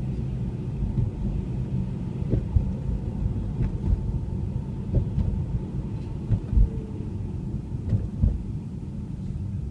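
Car interior noise while driving on snow-covered roads: a steady low engine and road rumble, with occasional brief low thumps.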